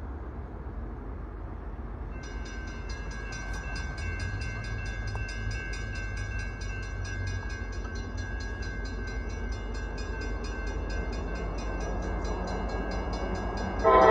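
An approaching Norfolk Southern intermodal train, its low rumble slowly growing louder. A bell rings rapidly and steadily, about four strikes a second, from about two seconds in. The locomotive horn starts loudly right at the end.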